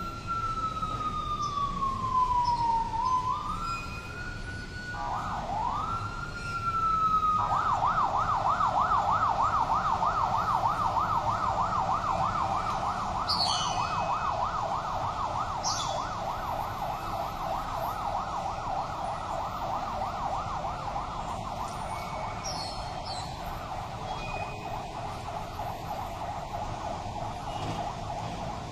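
Emergency-vehicle electronic siren: a slow wail falling and rising in pitch, then switching about seven seconds in to a fast yelp that gradually grows fainter.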